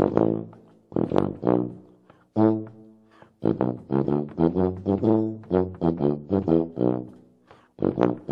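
Tuba playing a bouncy melody of short, detached notes. A few spaced notes come first, then quick runs of about three to four notes a second with brief pauses between phrases.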